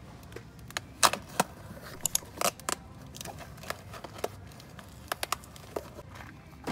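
Cardboard boxes of candy handled while being unpacked from a shipping carton: irregular sharp taps, scrapes and crinkles of cardboard and packaging, about a dozen in all.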